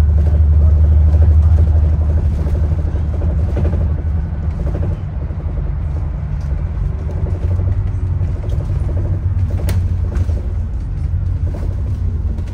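Low, steady rumble of a bus in motion heard from inside the cabin: engine and road noise, strongest in the first couple of seconds and easing slightly after about five seconds. A sharp click comes near the end.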